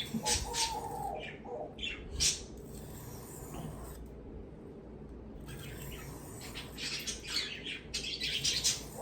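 Knife blade drawn in short strokes across 600-grit abrasive, a quick run of scrapes, a pause, then more, with a pet bird chirping.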